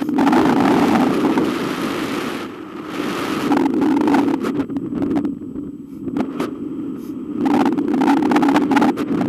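Wind buffeting the microphone of a hang glider in flight: a loud, low rumbling rush that eases twice and picks up again near the end.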